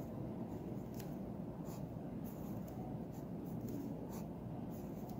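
Pencil writing on paper in a series of short, faint scratchy strokes, drawing fraction bars, numbers and signs.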